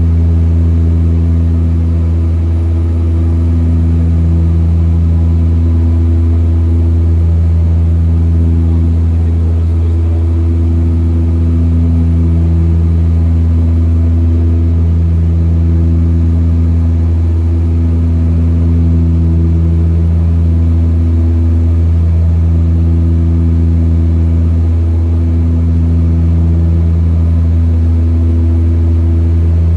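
Twin Otter's Pratt & Whitney Canada PT6A turboprop engines and propellers droning steadily in cruise, heard inside the cabin as a loud, deep hum. A slow throb swells and fades every two or three seconds, the beat of the two propellers turning slightly out of step.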